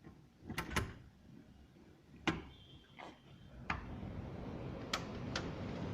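A door being handled and opened: several sharp clicks and knocks of a latch and frame, then a steadily growing rush of strong wind from about four seconds in.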